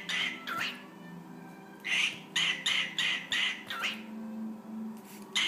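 Cockatiel mimicking "you're a bad, bad, bad boy" in a raspy, whispery voice. Each phrase is a quick run of harsh syllables ending in a swooping note, said at the start, about two seconds in, and again at the end.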